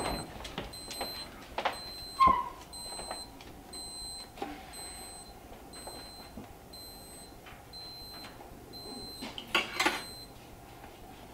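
A digital probe thermometer's alarm beeps in a regular high-pitched pattern, signalling that the summer sausage has reached its target temperature. Under it come the knocks and clanks of the oven door opening and sausages being handled on the metal oven rack. The beeping stops near the end, around a louder clatter.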